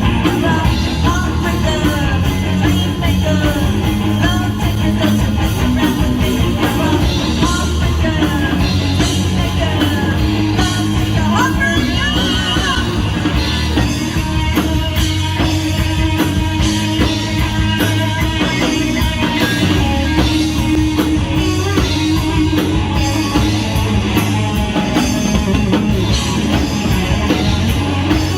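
Live rock band playing loudly, with drums, bass and electric guitar. A lead guitar plays bending lines through the middle of the section.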